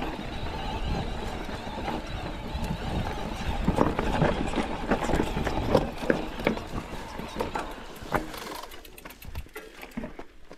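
Mountain bike tyres crunching and knocking over rocky trail ground, with irregular clicks and rattles, dropping away about eight and a half seconds in.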